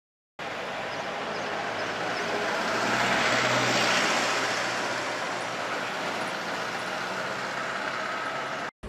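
Street traffic: a motor vehicle passes, its engine and tyre noise swelling to a peak about three to four seconds in, then fading back to a steady traffic hum.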